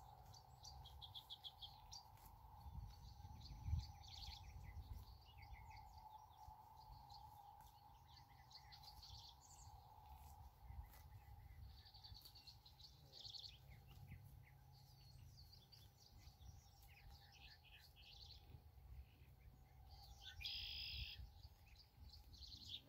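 Faint birdsong: many short chirps and trills from several birds, with one louder call near the end, over a faint steady drone and a low rumble.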